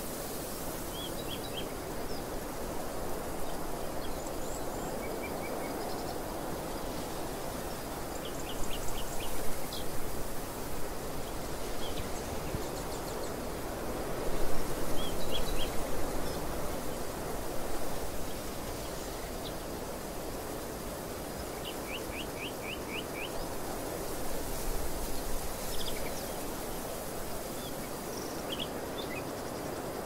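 Steady wind that swells in gusts three times, with small birds calling in short, quick runs of high chirps.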